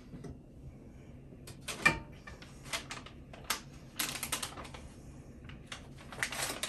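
Crinkling and crackling of a plastic packet of nuts being handled and opened, in a quick irregular run of sharp crackles, with one louder knock about two seconds in.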